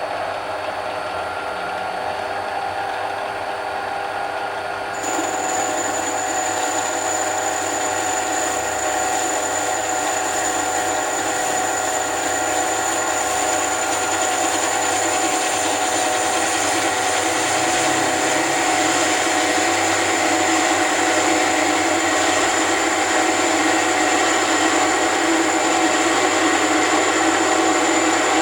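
Mini lathe motor running steadily with a whine. About five seconds in it gets louder, and a high-pitched whine and more hiss come in.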